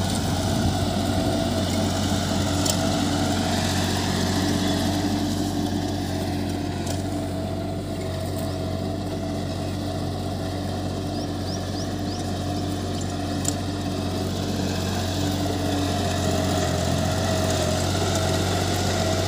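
Captain mini tractor's diesel engine running steadily under load while pulling a plough through dry soil.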